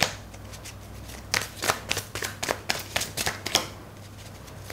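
A tarot deck being shuffled by hand: a quick run of sharp card clicks about four a second, with a lull before it and after it.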